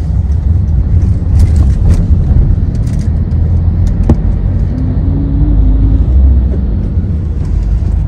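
Steady low rumble of a car driving in traffic, heard from inside the cabin, with a faint click about four seconds in.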